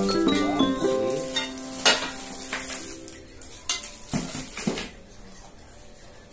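Plastic-wrapped metal shelf rods being handled and set down in a cardboard box: crinkling plastic wrap and several light metal knocks, the loudest about two seconds in. Background music plays at the start and stops about two seconds in.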